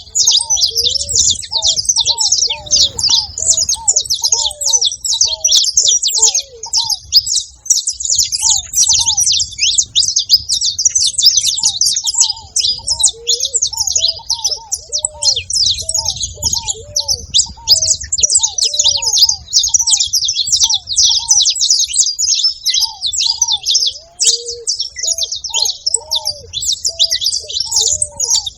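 A saffron finch sings a fast, unbroken stream of high chirps. Under it a ruddy ground dove gives runs of short, low coos, about two a second, that stop and start again several times.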